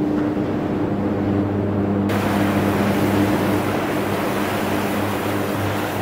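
Electric arc furnace running: a steady low electrical hum under a rough, crackling roar from the arcs. About two seconds in, a brighter hiss joins in and stays.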